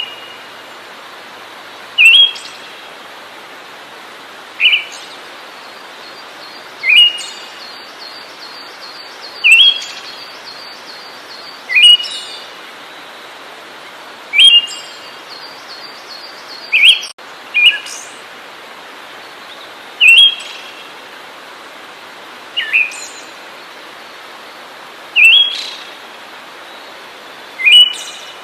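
A songbird giving a short, sharp rising call over and over, about once every two and a half seconds, over a steady background hiss.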